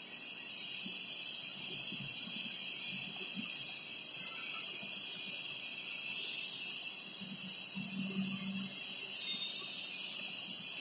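Steady high-pitched hiss of background noise with no speech.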